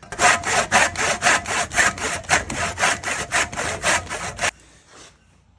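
Handsaw cutting a slit into the end of a wooden shovel handle, in quick even strokes about four a second, stopping about four and a half seconds in.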